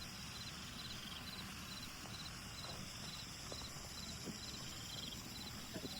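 A cricket chirping steadily: short, high chirps of a few quick pulses each, repeating about twice a second over a faint low background rumble.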